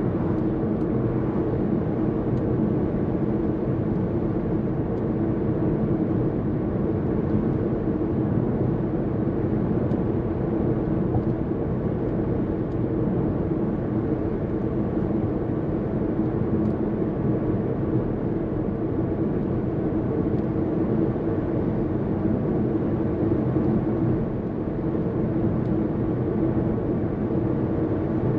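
Steady road and engine noise of a car cruising, heard inside its cabin: a constant drone of tyres on asphalt and the engine.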